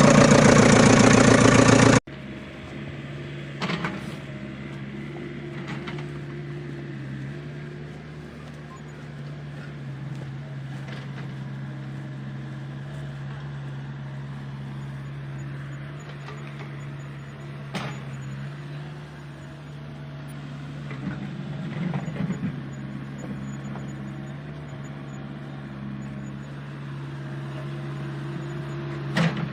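A steady low mechanical hum with a few sharp clicks and knocks scattered through it. A louder, fuller sound cuts off abruptly about two seconds in.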